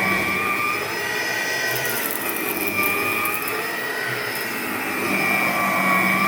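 Electrolux Discovery 3 upright vacuum cleaner running steadily, its motor whine wavering slightly in pitch; it is running well.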